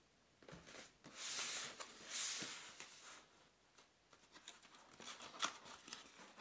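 Hands sliding and rubbing over a cardboard box, with two longer stretches of scraping about a second and two seconds in. Then come scattered short scrapes and clicks as the tuck-in flap of the lid is worked loose.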